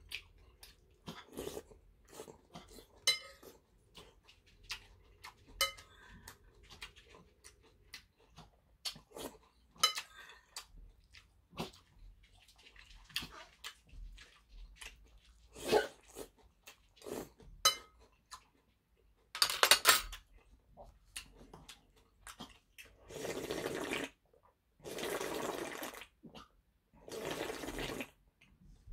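A person eating soup: wet chewing and slurping of soup greens with small clicks of a spoon against the bowl. Near the end come three long slurps as the soup is drunk straight from the bowl.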